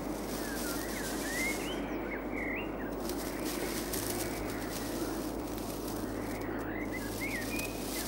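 Young beavers squeaking: short, high, rising and falling chirps in two brief clusters, one starting about half a second in and another near the end, over steady background noise.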